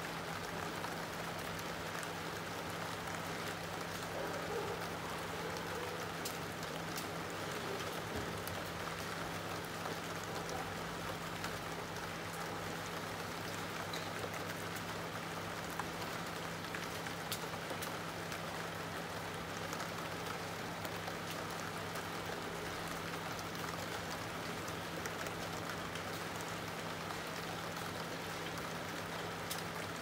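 Steady rain falling, with many small drop ticks on surfaces and a faint steady low hum underneath.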